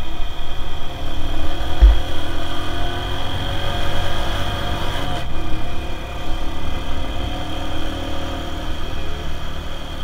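Motor scooter engine running steadily while riding, over a heavy low rumble of wind on the microphone. A brief low thump comes about two seconds in, and the engine note shifts about five seconds in.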